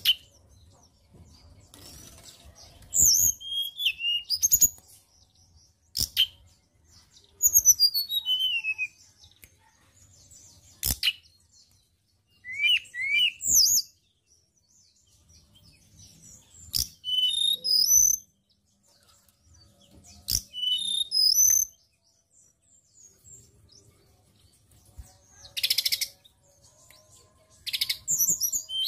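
Hill blue flycatcher singing: short phrases of high, quick, mostly falling whistles every few seconds, broken by sharp single notes. Near the end come two harsher, buzzy rattles.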